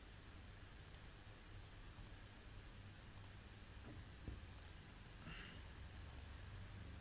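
Computer mouse clicking, about seven short sharp single clicks spaced roughly a second apart, over a faint steady low hum.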